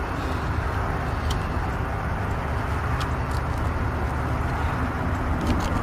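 Steady low rumbling background noise, with a few faint sharp clicks.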